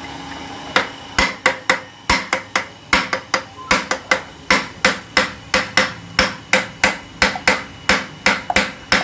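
Hammer striking metal over and over, about three blows a second with some quick double taps, each blow ringing briefly. It starts about a second in.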